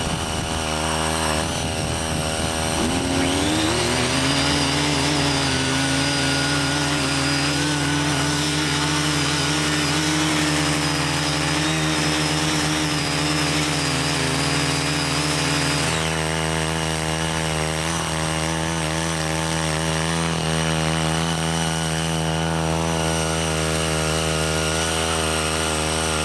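Small engine of a Ching Yee mini rotary cultivator running under load as its tines churn rice-husk chaff into the soil. It revs up about four seconds in, holds the higher speed, and drops back a little past halfway.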